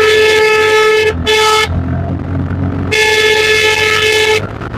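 Vehicle horn sounding three times on one steady note: a blast of about a second, a short toot right after, then a longer blast, over the riding noise of a motorcycle's engine and wind at road speed.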